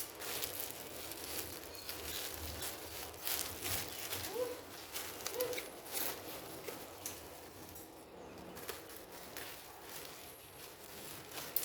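Irregular rustling, crinkling and clicks of a returned parcel and its plastic packaging being handled and opened.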